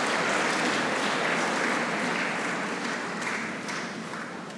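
Audience applauding, the applause gradually dying away and thinning to scattered claps near the end.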